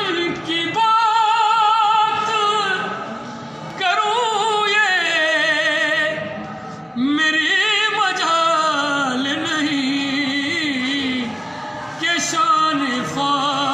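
A man's voice singing a devotional Urdu recitation in drawn-out, ornamented phrases with a wide vibrato, three long phrases with short breaths between them.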